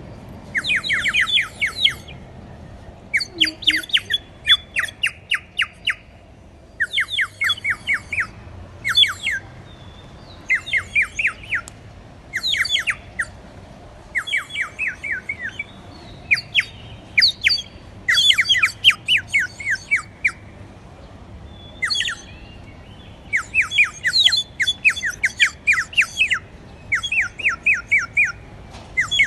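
Water-filled clay bird whistle blown in short bursts, each a rapid warbling trill lasting a second or two, with brief pauses between bursts.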